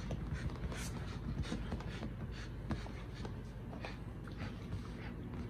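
Two dogs tussling over a toy on a couch: soft scuffling with many scattered small clicks and knocks, over a low steady hum.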